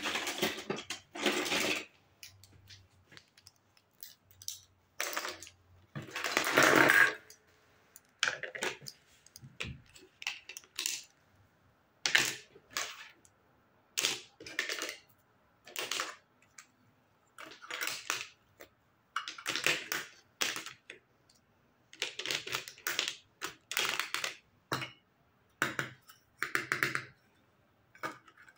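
Hard plastic toy kitchen pieces (play food, toy spoons, forks and plates) being picked up and set down on a tabletop: a string of light clacks and rattles with short pauses between them.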